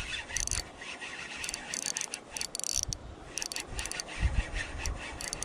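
Spinning fishing reel clicking and rattling in irregular runs while a sea bass is played on the line. The reel is noisy because it was dropped in the water. A few dull handling thumps come about four seconds in.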